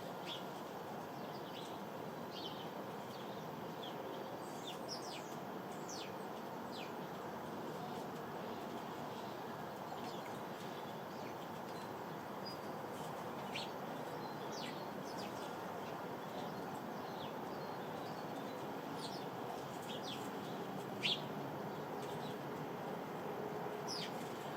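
Sparrows chirping, short high chirps scattered irregularly, one louder chirp near the end, over a steady background hum.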